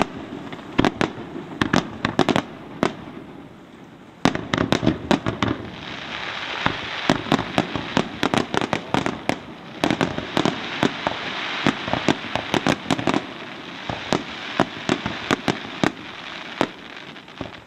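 Aerial firework shells from a Pains Fireworks display bursting in a rapid barrage: dozens of sharp bangs, some close together, with a dense rushing hiss between them through the middle stretch.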